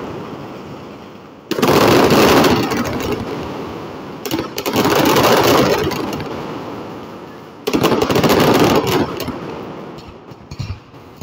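Mascletà firecrackers going off in three volleys of rapid, densely packed bangs about three seconds apart. Each volley fades into a long echoing rumble.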